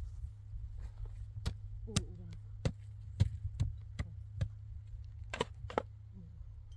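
A series of sharp, irregular knocks or strikes, about nine in all, the loudest a little past the middle, over a steady low hum.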